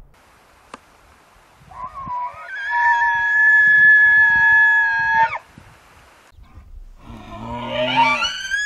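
Bull elk bugling: a long, high, whistling call held steady for about three and a half seconds, then near the end a second call that rises steeply in pitch. This is the rutting bull's bugle.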